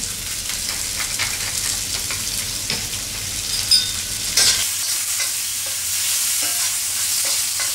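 Diced chicken sizzling as it fries in hot oil in a steel pan, stirred with a metal spoon that scrapes against the pan, with a couple of sharp clinks about halfway through.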